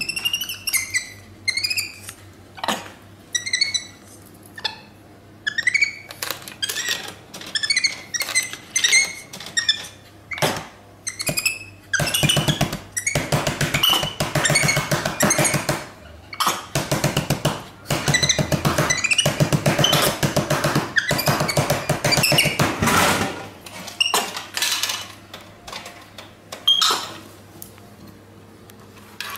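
Capuchin monkey's high, short, rising chirps and squeaks, repeated irregularly. Between them, in the middle, is a longer, louder stretch of rapid, even pulsing sound.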